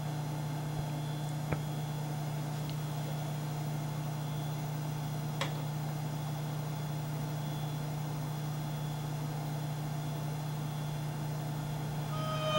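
Steady low electrical-sounding hum with a faint hiss, broken only by two faint clicks, one about a second and a half in and one about five seconds in.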